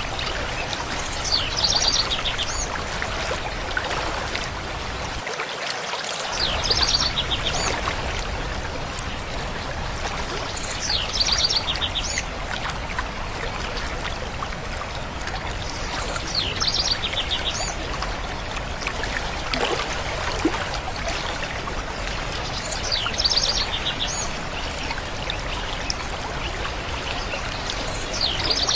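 Steady running water, like a stream, with a songbird repeating the same short high song phrase about every five seconds.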